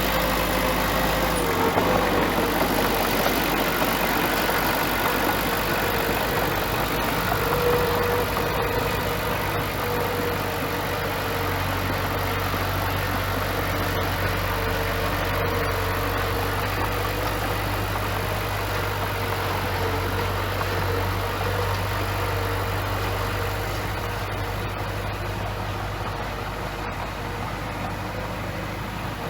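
Bulldozer diesel engine running steadily, a low drone with a higher whine that wavers a little in pitch, getting slightly quieter near the end.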